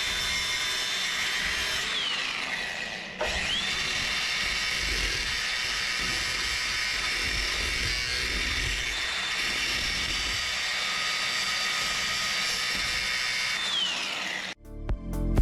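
An electric power tool's motor runs at a steady high whine. About two seconds in it winds down and stops, then spins straight back up to speed. It runs steadily until it winds down again near the end, when a music track with a beat comes in.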